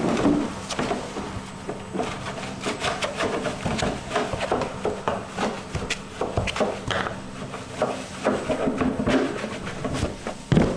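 A plastic dough scraper scrapes and cuts through sourdough on a floured wooden workbench, with irregular knocks and rubbing of plastic against the wood. There is a louder knock at the start and another near the end.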